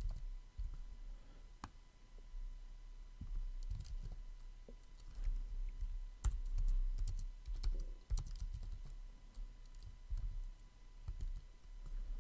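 Typing on a computer keyboard: irregular keystrokes and dull knocks in short runs with pauses.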